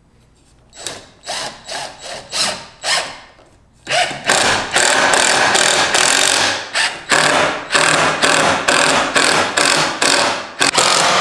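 Cordless drill driving a long screw through a 2x4 desk leg into the tabletop: several short trigger bursts to start the screw, then from about four seconds in a long, nearly continuous run broken by brief stops.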